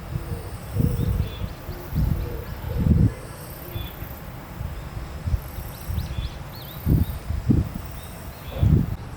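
Outdoor ambience of faint bird chirps over a high, steady insect buzz, broken by irregular low thuds and rumbles, about six of them, which are the loudest sounds.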